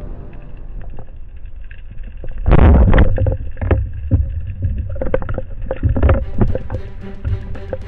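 Underwater recording of a band-powered speargun firing about two and a half seconds in: one loud burst with sharp clicks, followed by a run of clicks and knocks from the shaft and shooting line.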